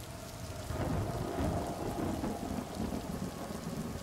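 Steady rain with a low rumble of thunder that swells about a second in and rolls on.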